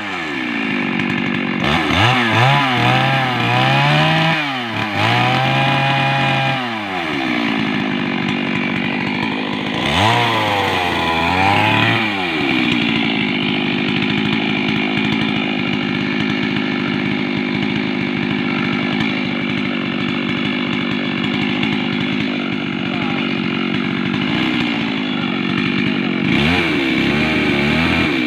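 Two-stroke chainsaw felling a standing tree, cutting into the base of the trunk. The engine revs up and down several times at first, then holds steady at high revs in the cut for a long stretch, and drops and revs again near the end.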